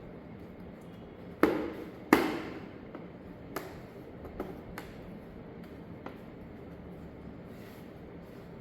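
Two sharp knocks about a second and a half and two seconds in, then a few lighter clicks spread over the next few seconds: hard parts or tools being handled and set down while working on a computer.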